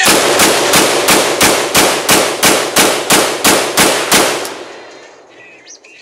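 AK-47 rifle firing a rapid string of about fourteen single shots, roughly three a second, stopping about four and a half seconds in, the echo fading away afterwards.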